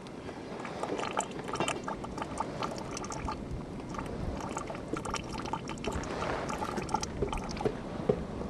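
Volcanic sulphur fumarole venting gas: a steady hiss with many small crackles and pops.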